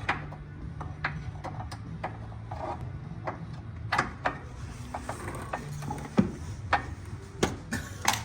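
Irregular clicks, knocks and scraping of tools and metal parts being handled under a car during a steering rack removal, over a steady low hum.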